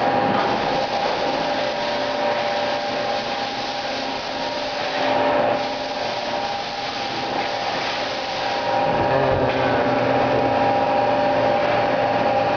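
Running machinery with a steady two-note whine over a hiss, from a powered-up Mazak QT20 CNC lathe. It grows a little louder, with a low rumble, about nine seconds in.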